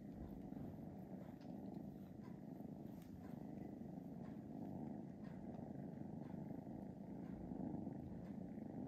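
Faint, steady purring of a mother cat nursing her kittens.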